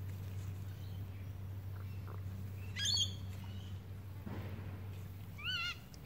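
Birds calling over a steady low hum: a short call rich in overtones about three seconds in, then a wavering, warbling call near the end.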